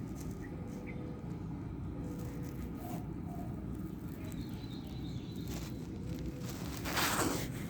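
Outdoor background noise: a steady low rumble with a few faint chirps, and a short louder hiss about seven seconds in.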